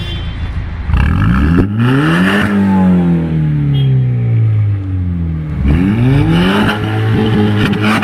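BMW Z4 roadster's engine with a modified exhaust, revved from idle. The revs climb about a second in and sink slowly back over about three seconds, then climb again near six seconds and are held.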